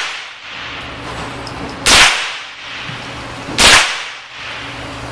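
Two shots from a Smith & Wesson M&P .22 rimfire rifle, the first about two seconds in and the second under two seconds later, each a sharp crack with a short ringing tail.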